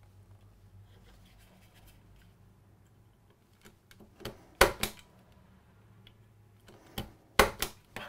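Punch-down tool seating wires into the insulation-displacement slots of a keystone network jack, its blade cutting through the insulation: sharp snapping clicks, a quick pair about halfway through and two or three more near the end.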